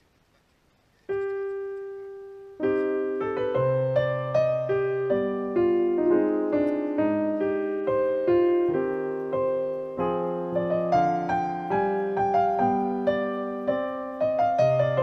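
Piano music: one note held from about a second in, then a flowing run of notes that starts about two and a half seconds in.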